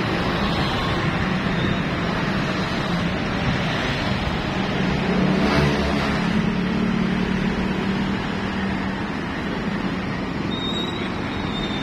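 Steady road-traffic noise, with a motorcycle engine passing close about halfway through, loudest as it goes by.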